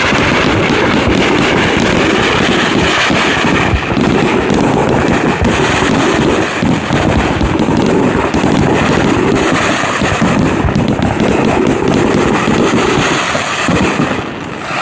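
Fireworks display: a dense, continuous barrage of shell bursts and crackling, really loud, easing off slightly near the end.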